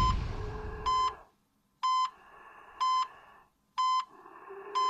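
Electronic patient heart monitor beeping steadily, a short high beep about once a second, with a faint hiss between the beeps.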